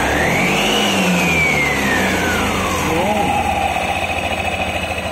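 Yamaha NMAX scooter's engine running with the CVT cover off, the belt, pulleys and clutch bell spinning. It is revved once: a whine rises to a peak about a second in, falls back over the next two seconds, then runs steady. This is a test of a 1000 RPM JVT center spring, which keeps the torque drive from opening until the engine reaches 1000 RPM.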